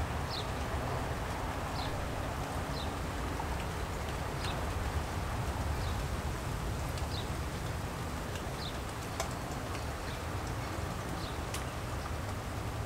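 Light rain and gusty wind: a steady hiss of rain with a low wind rumble on the microphone. A short high chirp repeats about every second and a half, and there are a couple of sharp ticks near the end.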